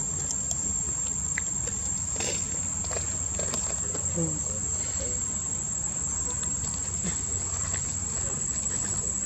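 Insects droning: one steady, high-pitched continuous note, over a steady low background rumble.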